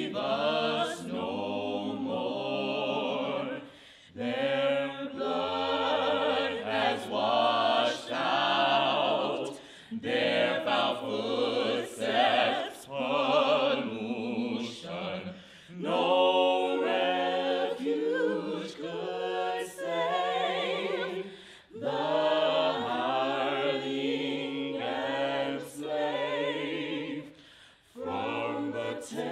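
A choir singing unaccompanied in harmony, in phrases a few seconds long with brief breaks between them.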